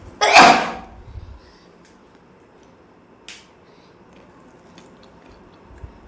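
A woman sneezing once, loud and sudden, just after the start and dying away within about a second. A brief faint click follows about three seconds in.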